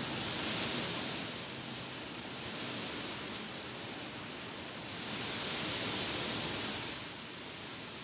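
Strong wind blowing through leafy trees, the leaves rustling in a steady rush. It swells in two gusts, one at the start and another about five seconds in.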